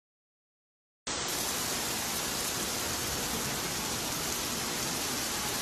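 Dead silence for about a second, then a heavy downpour starts abruptly: a loud, even hiss of rain.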